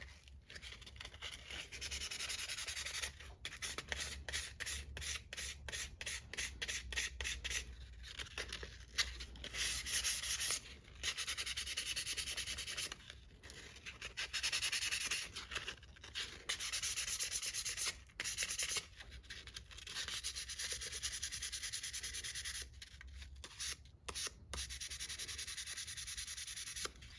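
Fine-grit sandpaper, 600 then 800 grit, rubbed by hand over the metal of a rusty old pocket knife, a dry hiss in back-and-forth strokes, quick short strokes at first, then longer ones with brief pauses. The sanding takes off light rust and surface marks.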